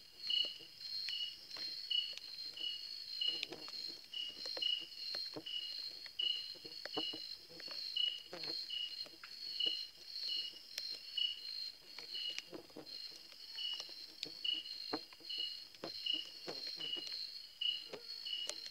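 Night insects calling: a steady high trill, with a separate chirp repeating about twice a second. Irregular soft clicks and rustles close by run underneath.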